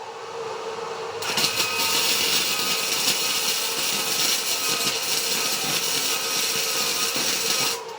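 Welding arc crackling and hissing in one continuous run of about six seconds, starting and stopping abruptly, over a steady hum from the welder.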